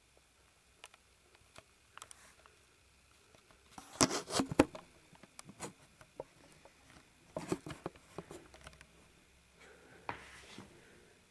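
Handling noise: three short bursts of rustling and clicking, the first about four seconds in and the loudest, with a few faint ticks between them.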